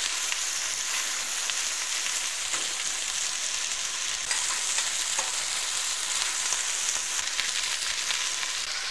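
Turkey pieces sizzling steadily as they brown in hot oil in a stainless steel pot, with a few light clicks of a fork turning the meat against the pot.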